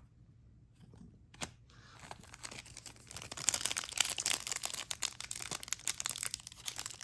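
Trading card pack wrapper being torn open and crinkled: a single click, then from about two seconds in a dense rustling crackle that grows louder.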